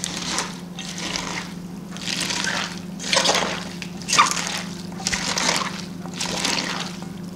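Shredded cabbage, carrot and chili in salt brine being squeezed and kneaded by hand in a stainless steel bowl, squelching and sloshing in repeated strokes about once a second. The vegetables are being worked to soften them and press out their liquid for kimchi.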